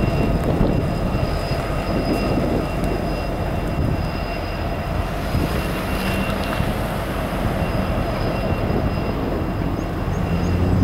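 Norfolk Southern diesel-electric locomotive running at the head of a rock dump train: a steady low engine rumble, with a faint steady high-pitched whine above it.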